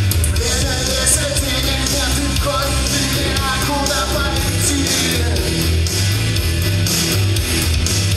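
Live rock song: a man singing in Russian with electric guitar over a steady drum beat.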